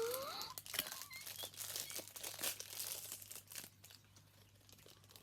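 Thin plastic packaging crinkling and tearing as it is pulled open by hand, a dense run of crackles lasting about three and a half seconds before it stops.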